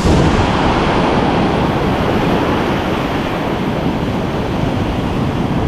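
Ocean surf washing steadily on the beach, with wind noise on the microphone.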